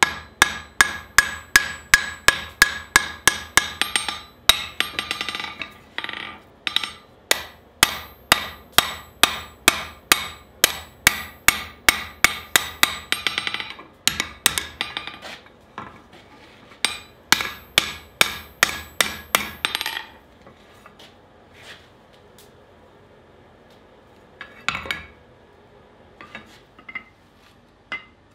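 Hand hammer striking the hot steel of a pickaxe blade on an anvil, drawing out the tapered point: a quick, even run of about two to three ringing blows a second, broken by two short pauses. About twenty seconds in the hammering stops, leaving only a few scattered knocks.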